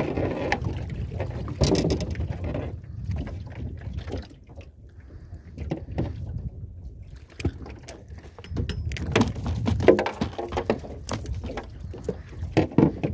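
Water lapping against the side of a drifting aluminium boat, under a steady low rumble, with scattered knocks and clicks on the hull.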